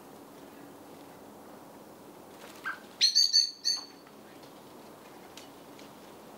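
Eurasian magpie giving a loud, harsh chatter, a quick run of about five rasping notes about three seconds in, just after one short call.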